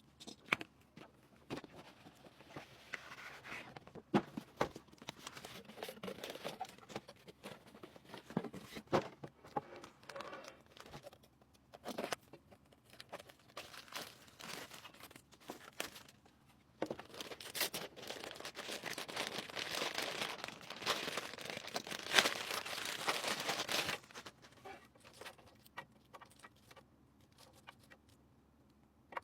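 Crinkling and tearing of packaging or plastic film, mixed with scattered clicks and light knocks of parts being handled. A denser, louder stretch of rustling and tearing runs from about 17 to 24 seconds in.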